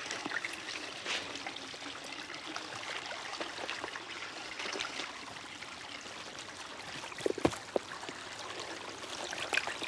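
Water of a small stream running steadily over rocks, with a continuous trickle. Two brief, sharp, louder sounds come about three-quarters of the way through.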